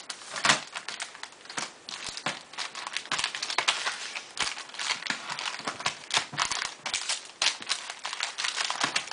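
Sealed trading-card packs being shuffled and handled together, their wrappers crinkling in a dense run of quick, irregular crackles and taps.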